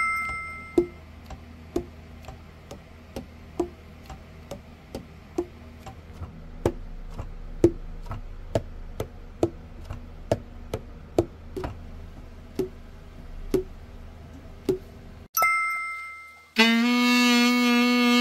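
Selmer Mark VII tenor saxophone pads being slapped shut on their tone holes one key after another, about two short hollow pops a second: a leak test in which the "tong" of each pad is a good sound, the sign of a tight seal. Near the end the same saxophone starts a sustained played note.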